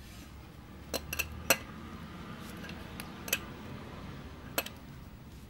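A steel combination wrench clinking against the fittings on an Accusump oil accumulator's end cap as a fitting is tightened: about five sharp metallic clicks, the loudest about a second and a half in.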